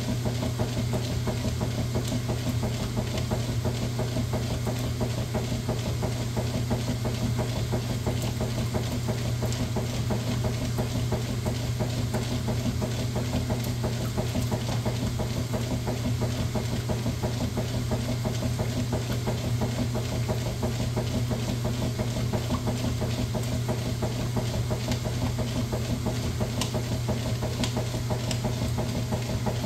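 Washing machine running through a wash cycle, a steady low motor hum with no let-up.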